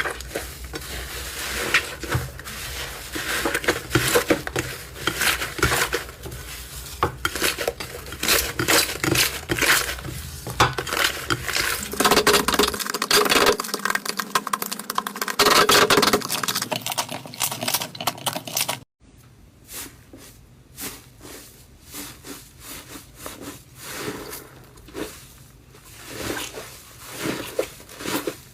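Slime being squeezed and stretched by hand: dense sticky clicks and crackling pops. The sound breaks off abruptly about 19 seconds in and goes on quieter after that.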